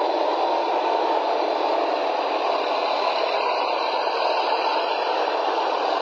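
T-72 tank's V-12 diesel and tracks running as it drives through snow, a steady muffled noise with no clear engine note, thin in the bass as on an old film soundtrack.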